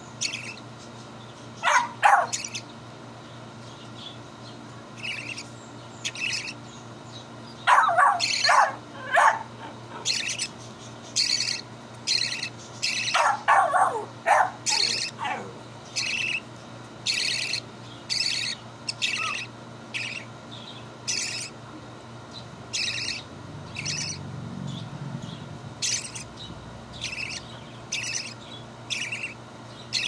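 Budgerigar chick begging while being hand-fed formula: short raspy calls repeated about once a second. Louder, lower calls come in clusters about two, eight and thirteen seconds in, some falling in pitch.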